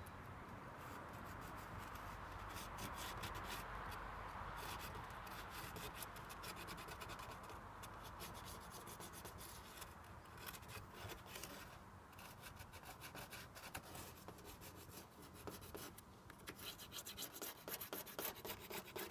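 Pencil scratching faintly in short strokes as it traces around the edge of a cardboard template on a van's painted metal roof, the strokes coming faster and more often in the last few seconds.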